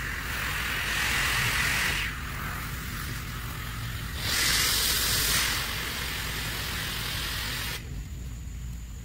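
Pressure washer's water jet hissing as it sprays up into a gutter. It swells louder twice, in the first two seconds and again about four to five seconds in, then cuts off sharply near the end. A steady low drone runs underneath.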